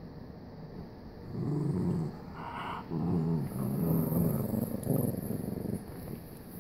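A dog growling in low, drawn-out rumbles, in several bouts from about a second in until about five seconds in.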